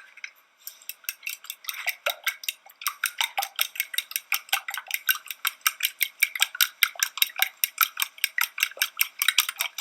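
Raw eggs being beaten in a bowl: a utensil clicks fast and evenly against the bowl's side, about six strikes a second.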